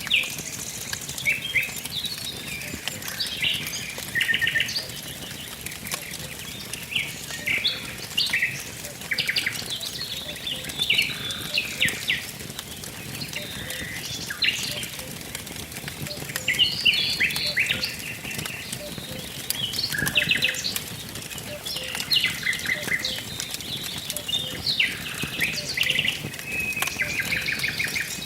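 Songbirds chirping and trilling continuously, with many short overlapping calls, over the soft crackle of a wood fire burning.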